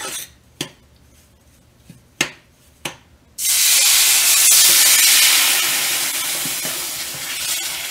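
A metal spoon clinks and scrapes against a stainless steel pan a few times as ghee-roasted rice semolina is stirred. About three and a half seconds in, water is poured into the hot pan and it hisses loudly as steam rises, the hiss slowly dying down.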